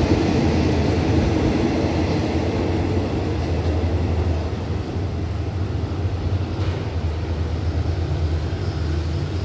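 Thai State Railway passenger coaches rolling along the track as the train pulls away from the station: a steady low rumble. It eases slightly about halfway through, as the last coach goes by.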